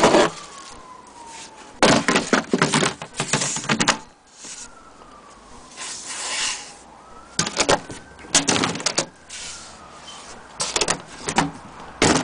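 A siren wails in the background, its pitch sliding down and back up every few seconds. Over it come repeated bursts of knocking and rustling from the wooden case and the camera being handled, which are the loudest sounds.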